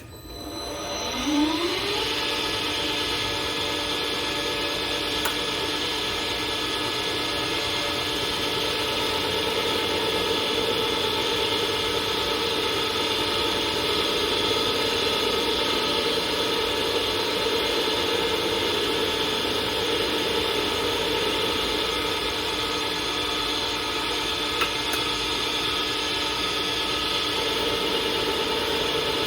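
Lathe motor starting: it spins up with a rising whine over about two seconds, then runs steadily with a constant hum and whine.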